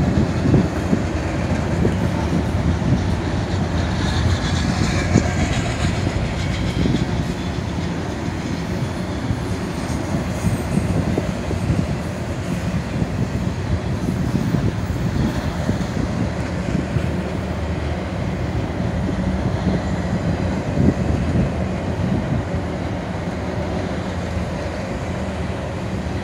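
Loaded double-stack container well cars rolling past at steady speed: a continuous rumble of steel wheels on rail, with some clatter.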